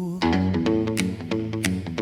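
Rockabilly rock and roll band music. A held sung note with vibrato ends about a quarter second in, and the full band comes straight in with a steady drum beat, bass and electric guitar.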